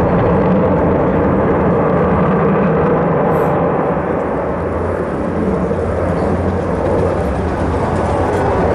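Sukhoi Su-35's twin turbofan jet engines running loud and steady in flight, easing slightly about halfway through and then building again.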